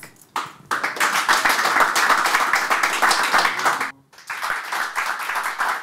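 Audience applauding, many hands clapping together. The clapping breaks off for a moment about four seconds in, then starts again.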